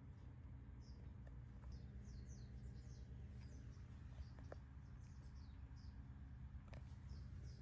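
Faint chirping of small birds: many short, quick, falling high notes, irregularly spaced, over a low steady hum.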